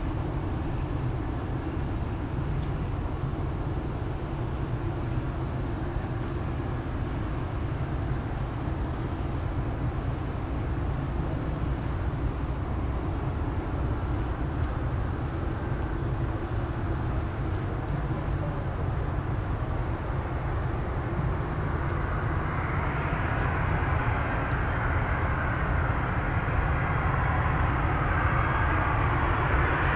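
Boeing 767-300 jet airliner on final approach: a steady low rumble, with the engines' jet noise growing louder and fuller from about two-thirds of the way in as the aircraft comes closer.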